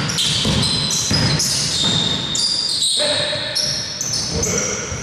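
Basketball being dribbled on a court, with repeated bounces, and sneakers squeaking on the floor in many short high squeaks.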